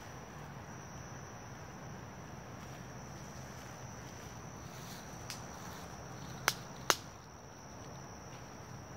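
A steady high-pitched insect drone over quiet woodland ambience, with two sharp snaps about half a second apart a little before the end.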